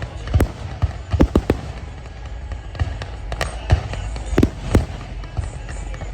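Aerial fireworks bursting: about ten sharp bangs in quick, irregular succession over a constant low rumble.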